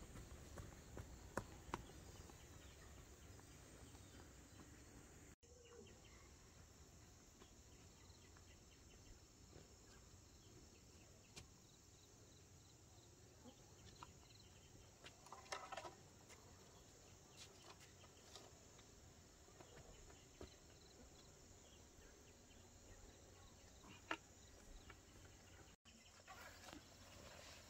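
Near silence: faint background ambience with a few scattered soft clicks and knocks.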